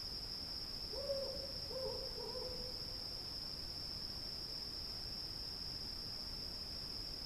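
An owl hooting a short run of low notes about a second in, over the steady high drone of cicadas in a night field.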